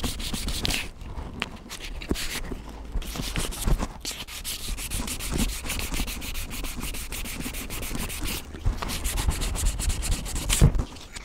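Sandpaper rubbed back and forth along a bare wooden hatchet handle, a run of hissing strokes with short breaks between them. The handle's lacquer has been stripped and the wood is being smoothed.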